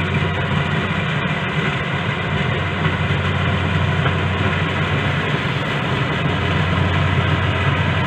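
Corn combine harvester running steadily while it works through standing corn: an even, unbroken engine hum with a strong low note.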